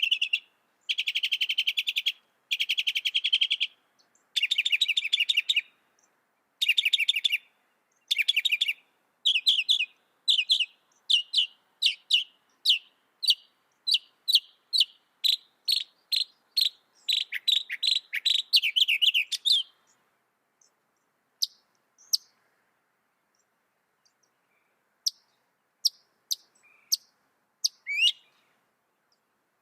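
Mockingbird singing: a fast trilled phrase repeated several times in a row, then a quick series of short separate notes, thinning out after the middle to a few scattered single chirps.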